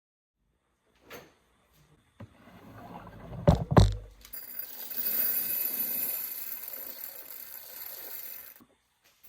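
Kitchen sounds: a click, then two loud knocks close together, then a steady hiss for about four seconds that stops suddenly.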